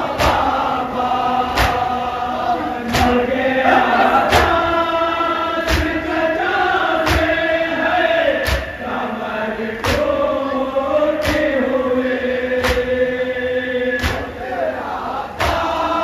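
A group of men chanting a Shia noha (mourning lament) together in long held notes. A loud unison chest-beat (matam) lands about every second and a half.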